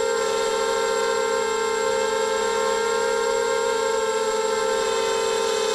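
250-size FPV racing quadcopter's brushless motors and propellers whining steadily in flight, the pitch dipping slightly near the end as the throttle eases.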